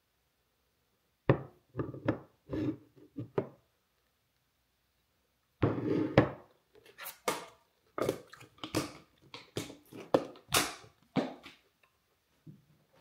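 Knocks and thuds of items being handled and set down in a small room. They come in two bursts: a handful at about a second in, then a longer, busier run from about halfway.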